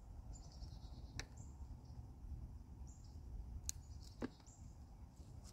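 Quiet outdoor ambience: a low wind rumble with faint bird chirps, and three faint clicks from knife work on a squirrel carcass.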